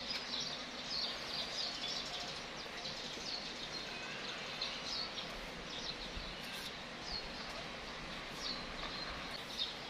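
Small birds chirping, short high calls repeated at irregular intervals over steady background noise.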